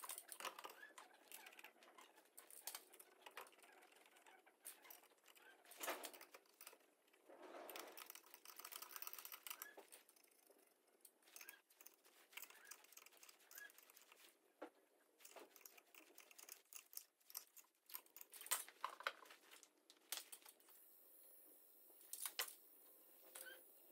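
Near silence with faint, scattered clicks and light taps from the parts of a bore welder being handled and fitted onto a line-boring bar.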